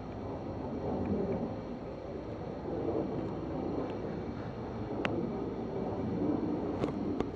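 Steady low background rumble, with a few short sharp clicks about five seconds in and near the end.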